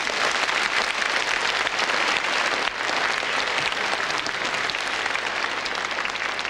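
A large audience applauding: the clapping breaks out at once and holds steady and dense.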